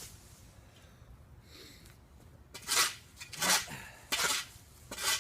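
A metal shovel blade scraping across a concrete slab, digging under packed dirt and debris: four short scrapes about two-thirds of a second apart, starting about halfway through.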